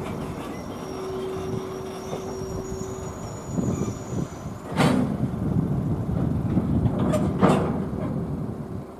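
Freight train running slowly on the rails: a steady rumble with a faint steady hum, and sharp metallic clanks of the wheels, once about five seconds in and twice in quick succession about seven seconds in.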